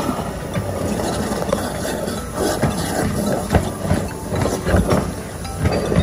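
High-pressure drain jetter running, its hose being worked down a kitchen sink drain. A steady hiss and rush of water jetting in the pipe, with irregular knocks as the hose strikes the drain fittings.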